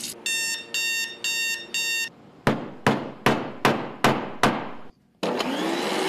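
Four electronic alarm beeps, evenly spaced. Then a hammer strikes a nail into a wooden board six times, about two to three blows a second; these blows are the loudest sounds. After a brief gap, a canister vacuum cleaner with a powered carpet head switches on, its motor whine rising as it spins up.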